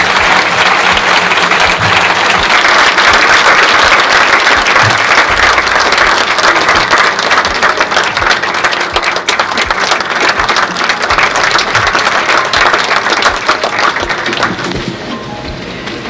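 Large audience applauding, a dense steady clapping that fades out near the end.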